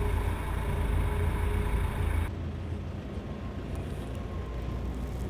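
Steady low rumble of a moving vehicle's engine and tyres on the road. About two seconds in the sound changes abruptly, the higher hiss dropping away while the low rumble goes on.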